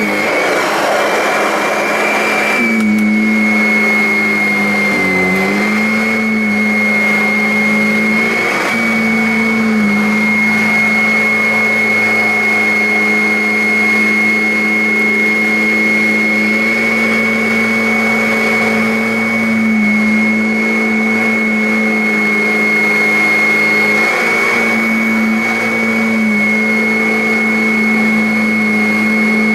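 Kirby Avalir upright vacuum cleaner running steadily on carpet, a hum with a high whine whose pitch dips briefly a few times as the load on the motor changes. The first couple of seconds are a rougher, noisier rush before it settles.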